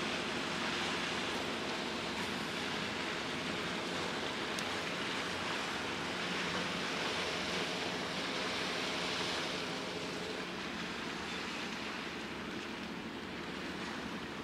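Steady wash of waves and wind over the water, with the faint, even hum of a ship's engines underneath that fades away about ten seconds in.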